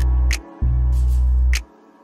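Background music with deep held bass notes and sharp percussion hits; the bass drops out about one and a half seconds in.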